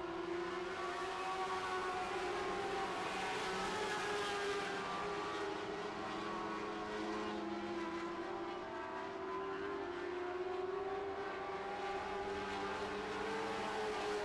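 Lightning Sprint race cars running laps on a dirt oval, several engines at speed whose pitch rises and falls slowly as the cars go around.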